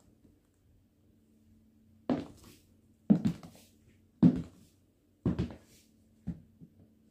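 Christian Louboutin stiletto heels clicking on a hard floor as the wearer walks: five sharp heel strikes about a second apart, the last ones fainter as she moves away.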